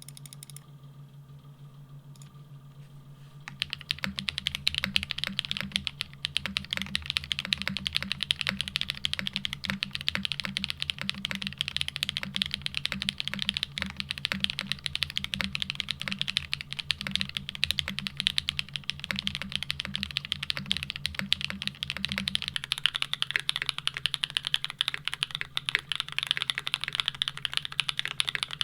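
Fast continuous typing on custom mechanical keyboards, starting about three seconds in: first a foamless Geonworks Frog TKL with an FR-4 half plate and GMK keycaps, then, near the end, a Geonworks W1-AT. A steady low hum runs underneath.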